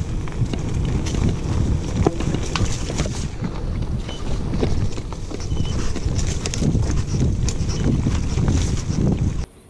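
Mountain bike loaded with bikepacking bags jolting fast over a bumpy forest dirt trail: a steady low rumble with irregular rattling knocks from the bumps, cutting off suddenly near the end.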